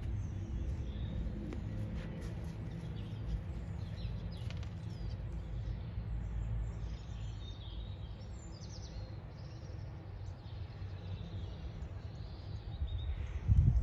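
Outdoor rural ambience: small birds chirping here and there over a steady low rumble of wind on the microphone, with a short, louder rumble just before the end.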